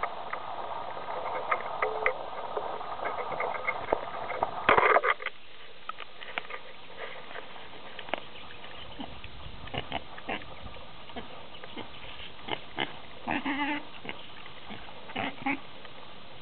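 A pig munching and smacking on cherries, with crackly chewing clicks, then snuffling about with a few short grunts later on.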